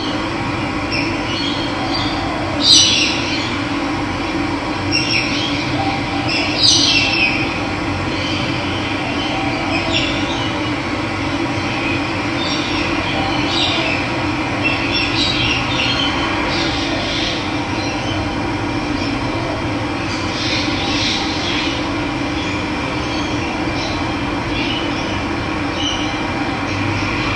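Running water flowing steadily, with birds calling in short chirps now and then above it; the loudest calls come about three and seven seconds in.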